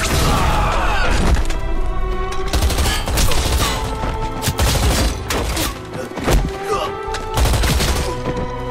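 Film battle sound mix: irregular gunshots and bullet impacts, with sparks and ricochets, over a sustained music score.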